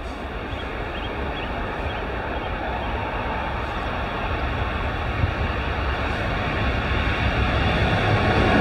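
Class 66 diesel-electric locomotive, its two-stroke V12 diesel working, hauling a freight train on the approach, growing steadily louder as it nears.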